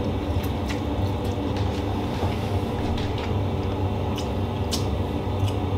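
A steady low hum, with faint light clicks and scrapes of a utensil in a frying pan of pasta.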